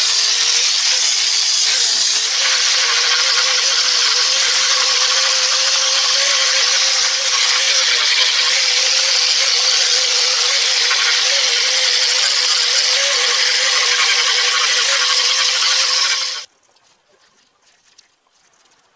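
Handheld electric grinder with a sanding disc running steadily against carved oak wood: a loud, even rushing noise with a steady whine. It cuts off suddenly near the end.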